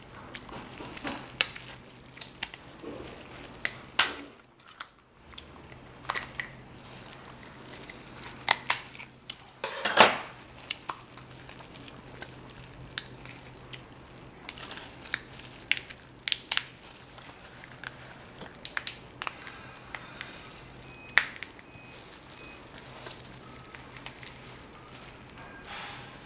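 Steamed king crab shell being cracked, snipped with kitchen scissors and pulled apart by gloved hands, with plastic gloves crinkling: an irregular scatter of sharp cracks and snaps, the loudest about ten seconds in.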